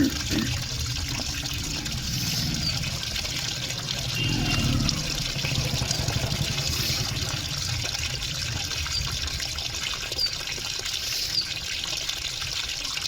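Water running and trickling, over a steady low hum.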